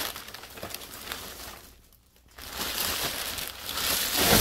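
Packaging rustling and crinkling as the exhaust's box is unpacked, with a brief pause about two seconds in before the handling picks up again, louder.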